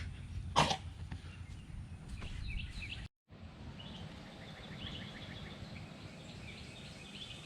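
Low outdoor rumble, like wind on the microphone, with a single sharp thump about half a second in. After a brief dropout, small birds chirp and give a quick trill over a quieter outdoor background.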